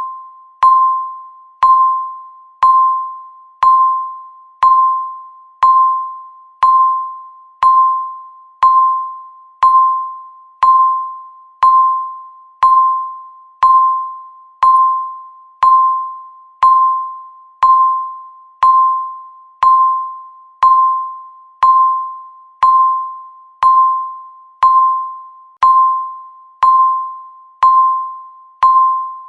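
Countdown timer's electronic beep sounding once every second: a single high-pitched tone, each beep starting sharply and fading quickly before the next.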